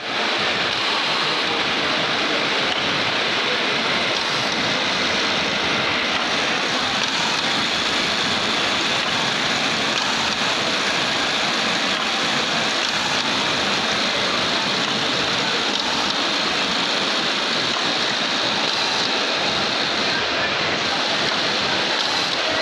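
Steady din of garment-factory sewing machinery: an even, unbroken hiss with no distinct strokes or rhythm.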